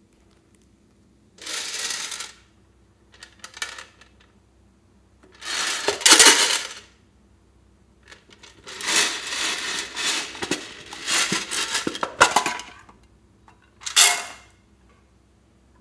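Hard plastic containers handled, tipped and knocked over a bowl of slime, giving five separate bursts of rattling and scraping, the longest lasting about four seconds.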